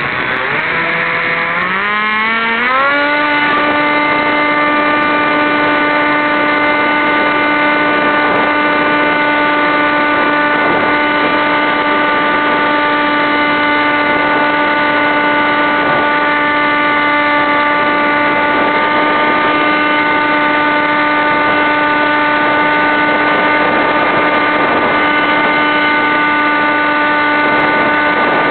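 Electric motor and propeller of a SkySurfer RC glider, picked up on board. The whine climbs in pitch in a few steps over the first three seconds as the throttle comes up, then holds steady through the flight.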